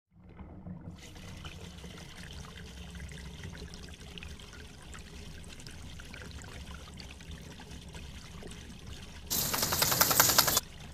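Water from a garden hose spraying and splashing onto a dog's coat and the concrete, a steady wash of water. Just over nine seconds in, a louder burst of spattering lasts about a second.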